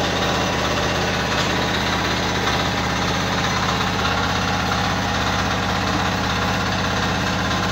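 An engine running steadily, a low, even drone that does not change.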